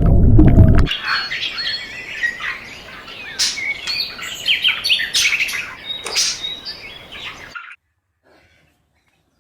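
Small birds chirping and twittering, many short calls overlapping. A loud low rumble cuts off about a second in, and the birdsong stops well before the end.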